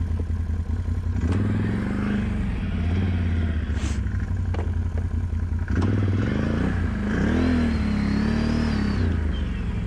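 ATV engines: one idles steadily while another quad approaches, its engine revving up and down, most strongly from about six seconds in, with a rising whine. A few sharp clacks are heard.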